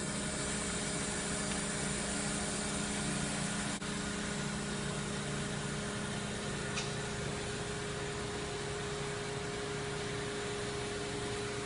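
Kitamura Mycenter 3X vertical machining center running: a steady mechanical hum and hiss with several held tones. About four seconds in there is a brief break, and the hum's pitch shifts to a higher steady tone. A single short tick comes near seven seconds.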